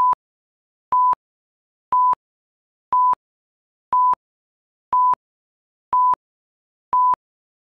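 Countdown leader beeps: a short, steady electronic tone at the same pitch once a second, eight in all, with silence between them, marking the seconds to the start of the programme.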